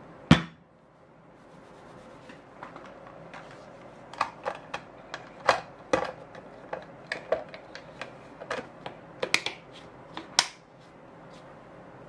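A sharp knock just after the start, then a clear plastic snap-lock lid pressed onto a glass food container: a run of irregular plastic clicks and taps, ending in one loud click about ten seconds in.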